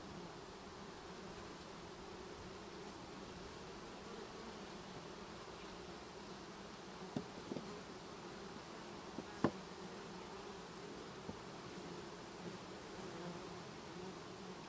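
Honeybees from freshly installed packages buzzing steadily as a mass, with a few light clicks around the middle.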